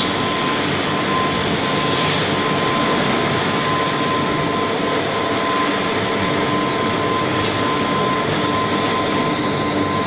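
Steady machinery noise of a steel scrap-melting furnace plant, with a constant high-pitched hum over it and a brief hiss about two seconds in.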